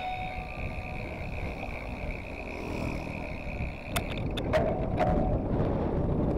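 Wind rushing over the camera microphone and tyre noise from a mountain bike rolling downhill on asphalt. A faint steady high whine runs through the first few seconds, and a few sharp clicks come about four seconds in.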